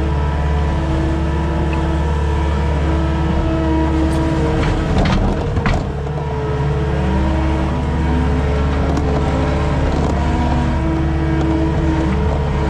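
Skid steer engine running steadily with whining tones that shift in pitch, and a few sharp knocks a little before the middle.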